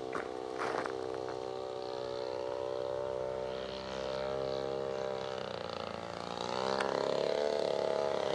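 Small two-stroke string-trimmer engine driving a radio-controlled model airplane's propeller, running steadily in flight. Its note dips about five seconds in, then rises and gets louder near the end.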